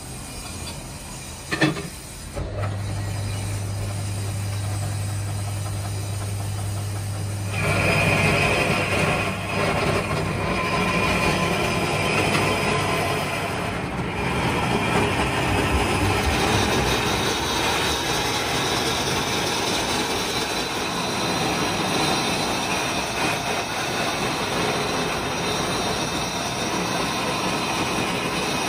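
A single knock, then a belt-driven lathe's electric motor starting with a steady low hum about two seconds in. From about seven seconds the cutting tool bites into the spinning stone mortar blank, a loud continuous grinding and scraping that runs on steadily.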